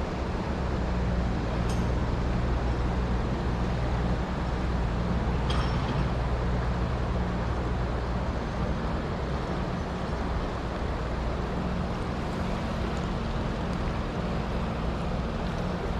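Steady rush of a mountain stream's flowing water, with two faint clicks.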